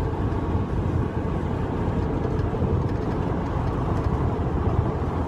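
Steady road and engine noise inside the cab of a pickup truck cruising on a freeway: an even, deep rumble.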